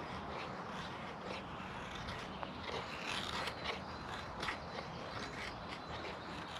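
A run of short, irregular scraping strokes, growing busier about halfway through.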